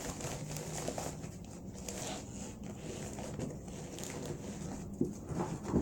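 Faint rustling and handling of laptop packaging as the laptop in its foam sleeve is lifted out and the cardboard packing inserts are moved, with a couple of soft knocks near the end.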